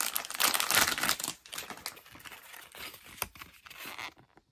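Shiny foil blind bag crinkling and tearing as it is opened, loud for the first second or so. Quieter rustling follows, with one sharp tick about three seconds in, as the plastic bag-clip figure and its paper insert are pulled out.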